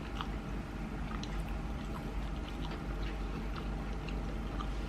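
Faint wet chewing and small mouth clicks of someone eating sushi, over a steady low hum.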